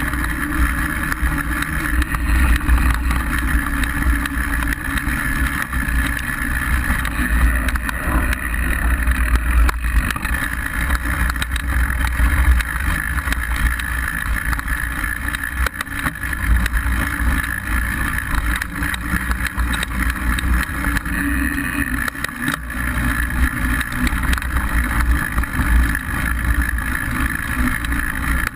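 Mountain bike riding fast over a dirt trail, heard from a bike-mounted action camera: a steady low rumble of tyres and wind buffeting the microphone, with scattered small rattles and knocks from the bike on the rough ground.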